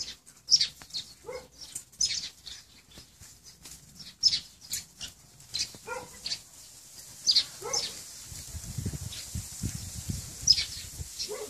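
Puppies play-fighting, giving short high-pitched yips and squeals at irregular intervals, with scuffling and rustling on the ground in the second half.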